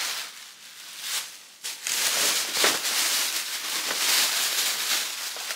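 Plastic candy packaging crinkling and rustling as it is handled, an irregular crackle that gets louder about two seconds in.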